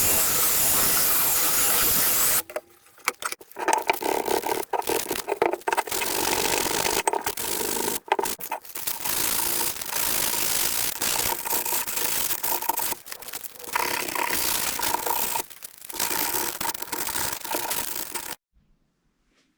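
Aerosol spray paint hissing steadily for about two seconds, then a run of short, choppy scraping and rubbing sounds broken by abrupt cuts.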